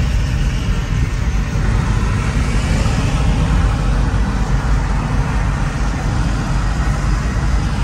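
Road noise inside a moving car's cabin: a steady low rumble from engine and tyres, with an even hiss of air and tyres over it.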